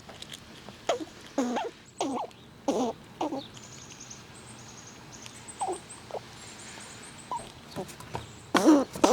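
Squirrels eating nuts close to the microphone: a run of short, pitched sounds about once a second, a quieter stretch of a few seconds with faint high ticks, then louder sounds again near the end.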